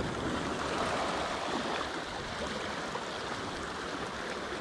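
Sea water washing steadily at the shoreline, a continuous rushing wash with no distinct breaks.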